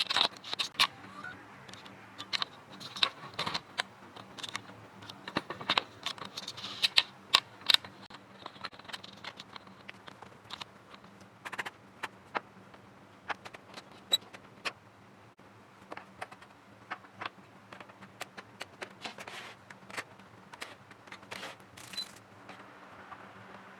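Irregular clicks, taps and light clatter of small hard plastic and metal parts being handled, as a PlayStation 4 Pro is worked on by hand, over a faint steady hum.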